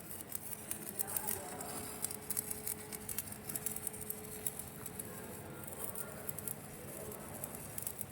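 Electric arc welding on a 90° elbow pipe fitting: the arc crackles irregularly, over a faint steady hum.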